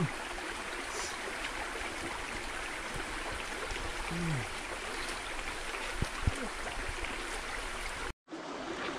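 Steady rushing of a flowing forest stream, with a few faint knocks about six seconds in. The sound drops out for a moment near the end.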